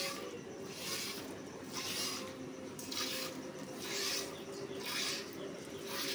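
A cow being milked by hand: jets of milk squirting into the pail in a regular rhythm of short hissing strokes, a little more than one a second.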